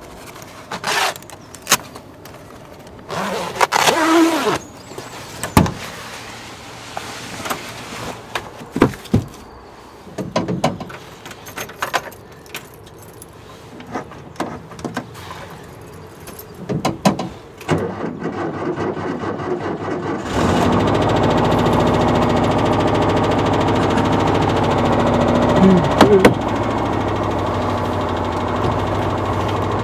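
Clicks and rustles of a fabric van cover being unclipped and the cab being worked, then about two-thirds of the way in the 1982 VW T25's 2-litre air-cooled flat-four starts and settles into a steady idle. This is its first start after sitting under a cover.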